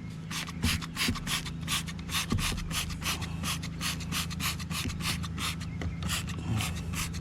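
Trigger spray bottle of degreaser squeezed rapidly, a quick even run of short spray hisses, about four to five a second, over a faint steady low hum.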